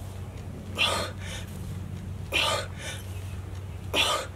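A man breathing out hard during barbell thrusters at 95 lb: one short, forceful exhale with each rep, three times about a second and a half apart.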